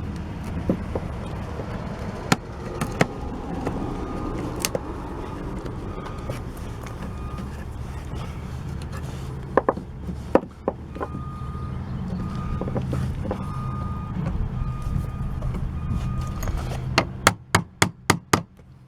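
Hammer tapping a chisel to cut out rotted wood from a door frame. A few scattered strikes come first, then a quick run of about eight taps near the end. A steady low rumble runs underneath.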